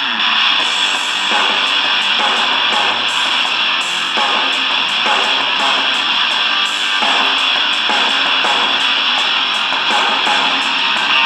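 Music with guitar playing from an FM station through the Eton Elite Traveler portable radio's small built-in speaker.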